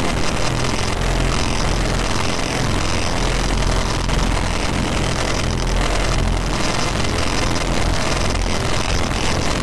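Harsh noise music from a SunVox modular synthesizer patch run through a waveshaper: a steady, dense wall of distorted noise with a deep droning rumble underneath.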